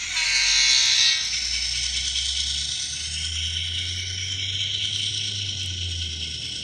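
Sound decoder in an N scale SD70 model locomotive playing through its 10 mm speaker: a horn blast for about the first second, then the diesel engine sound running steadily. Under it, the model's motor and wheels hum and rattle along the track.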